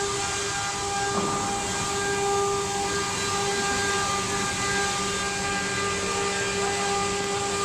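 CNC wood router running, its spindle giving a steady high whine over a loud hiss of cutting noise; a lower hum joins about a second in.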